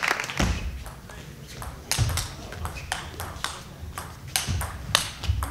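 Table tennis rally: the ball clicking off the rackets and table in quick alternation, roughly two hits a second, with a few low thumps among them.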